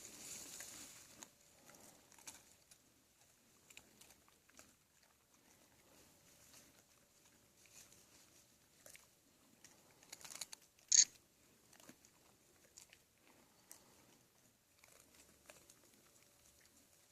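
Black bears crunching and chewing peanuts, with scattered small crackles. One sharp, louder click comes about two-thirds of the way through.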